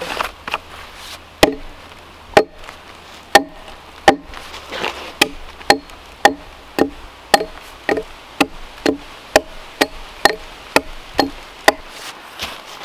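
Axe blade striking a log again and again as bark is hacked and peeled off: sharp strikes about one a second at first, then a steady rhythm of about two a second.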